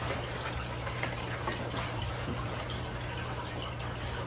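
Steady rushing background noise with a low hum, and faint rustling as sheets of paper are handled at the lectern.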